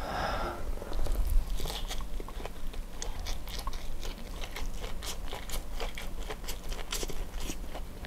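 Close-up mouth sounds of eating Nashville-style ayam geprek (crispy smashed fried chicken) mixed with rice and sambal: a rapid, irregular run of crunches and wet chewing clicks.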